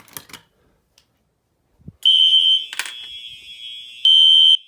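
A few faint clicks, then about two seconds in a fire alarm horn starts with a steady high-pitched tone, swelling into louder blasts: the system going into alarm after an i3 smoke detector is tripped.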